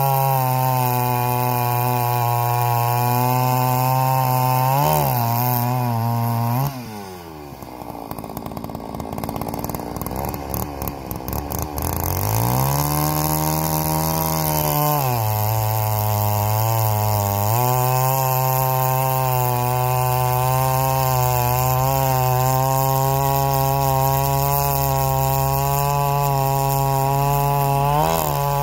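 G660 chainsaw, a Chinese clone of the Stihl MS660 with a big two-stroke engine, cutting pine logs at high revs. About seven seconds in the throttle is let off and it drops to idle for around five seconds. It then revs back up and runs at full throttle again, its pitch dipping briefly now and then.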